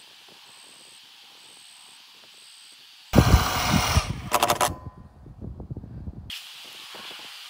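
Quiet outdoor air, then about three seconds in a power drill starts suddenly and loudly, driving a long screw with a washer through a steel strut channel into a wooden beam. The loud part lasts about a second and a half, then goes on fainter and stops about six seconds in.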